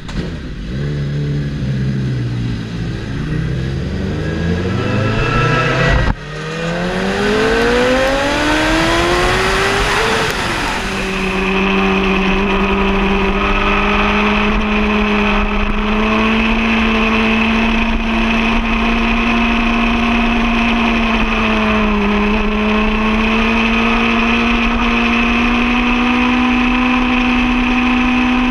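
Sport motorcycle engine heard on board, revs climbing and falling as it pulls away and changes up through the gears, then holding a steady high-revving note with a couple of slight dips from about twelve seconds in.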